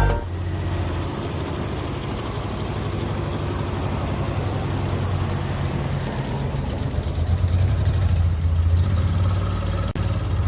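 1984 Maruti SS80's three-cylinder carburettor engine idling with a low growl, getting briefly louder about two-thirds of the way through.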